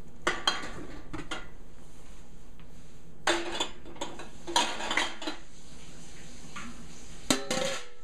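Empty glass canning jars clinking and knocking against each other and the enamelware canner pot as they are set into the hot water to sterilize, in several short bursts. Near the end the enamel lid clanks down onto the canner and rings briefly.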